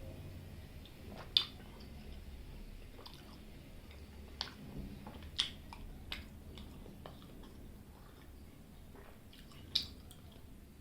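Close-miked chewing of rice and curry: soft wet mouth noises with scattered sharp smacks, four of them clearly louder.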